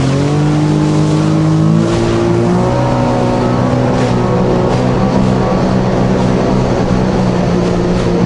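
Jet ski engine running under way, its pitch rising over the first two or three seconds as it speeds up, then holding steady.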